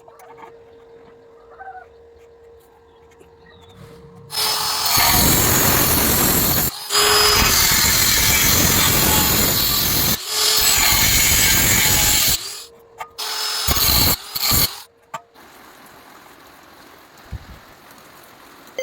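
Power tool working metal, most likely an angle grinder cutting steel: three long stretches of loud grinding with brief breaks, then a few short bursts.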